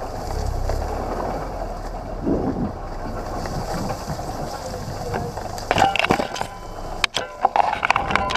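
Off-road vehicle driving slowly through dense reeds: a steady low engine and tyre rumble, then from about six seconds in a flurry of sharp scrapes and slaps as reed stalks whip against the bonnet and camera.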